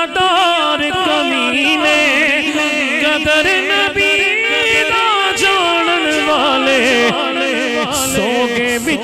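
Male naat reciter singing long, wavering ornamented vocal runs into a handheld microphone, amplified through a sound system.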